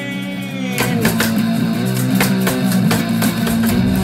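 Instrumental blues backing track: guitar playing over a steady beat, with no singing.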